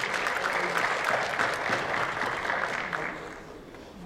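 Audience applauding a person called up to receive a certificate. The clapping fades out about three seconds in.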